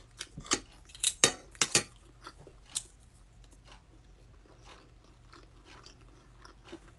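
A person eating: a few sharp clicks in the first two or three seconds, then faint chewing.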